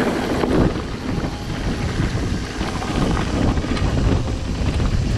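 Mountain bike riding over a loose gravel track: tyres crunching on stones and the bike rattling in many small clicks, under a steady low rumble of wind on the microphone.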